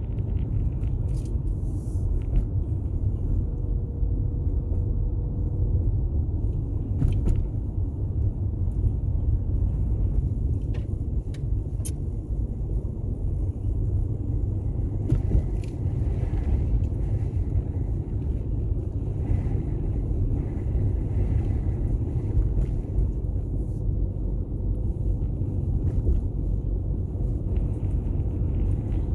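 Strong gusting wind buffeting the microphone: a steady, heavy low rumble.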